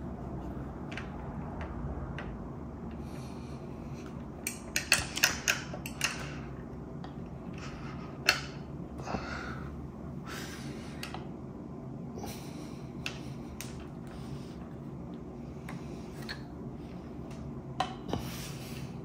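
Small metal tools and brake fittings clinking and being handled at a hydraulic disc brake caliper while its bleed nut is worked: a quick run of sharp clicks about five seconds in, a single louder click a few seconds later, and a couple more near the end, over a steady low hum.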